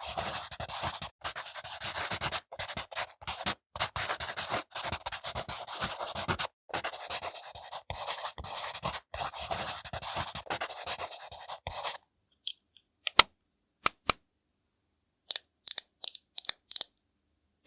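Close-miked makeup tool scratching and rubbing over grapefruit peel in quick, continuous strokes. About twelve seconds in the scratching stops and a few short, sharp taps follow.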